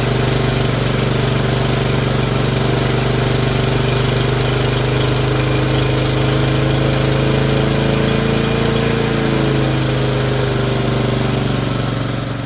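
Lawnmower engine running steadily. Its pitch drifts slightly upward and drops back about nine seconds in, and the sound fades out at the end.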